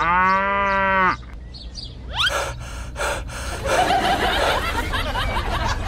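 Cartoon sound effects: a loud, pitched, voice-like gasp for about a second, then a quick rising whistle and a few sharp strokes, then a rough, noisy texture through the rest.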